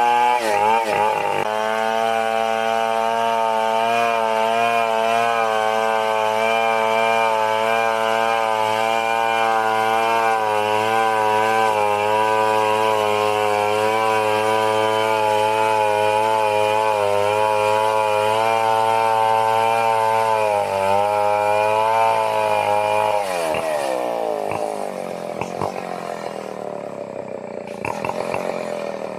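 Stihl 720 chainsaw held at high revs, ripping lengthwise through a timber beam, its engine note wavering slightly under the load. After about twenty seconds the throttle is released and the revs fall away to a low idle, with a brief blip near the end.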